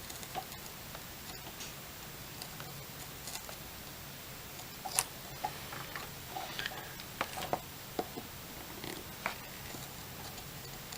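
Small scattered clicks and taps from handling a drone's power distribution board, battery-lead wire and soldering iron while soldering the lead to the positive pad, over a low steady hum. The clicks bunch up in the second half.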